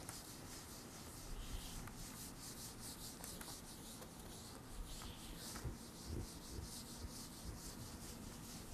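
Felt whiteboard eraser rubbing marker off a whiteboard: faint, repeated back-and-forth wiping strokes, a couple each second.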